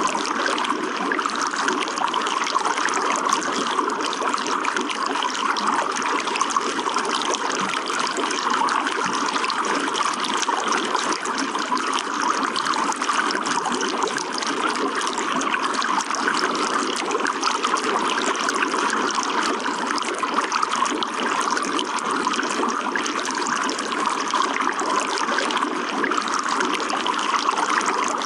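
Running water trickling and splashing steadily, an even flow with no change in level.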